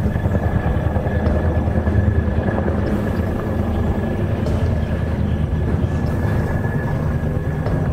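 Helicopter rotor and engine running steadily, a low drone with a rapid even flutter and a thin high whine over it.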